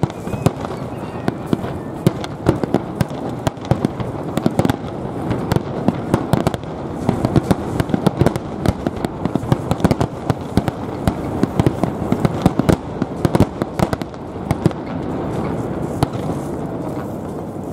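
Aerial fireworks shells bursting in quick succession: a dense run of bangs and crackling that thins out near the end.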